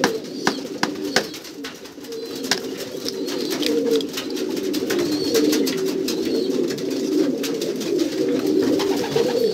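Many domestic pigeons cooing at once, a continuous overlapping low warble, with a few sharp clicks over it.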